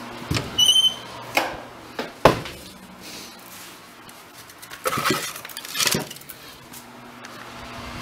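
Split firewood being picked out of a corrugated-metal-lined wood bin: the logs knock and clatter against each other and the metal. There is a short high squeak in the first second, several single knocks with the loudest a little over two seconds in, and a rattling run of clatter around five to six seconds.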